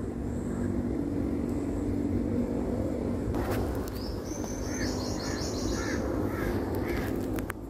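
Birds calling over a steady low rumble: from about halfway through, a run of short repeated calls, roughly two a second, with a rapid high chatter above them.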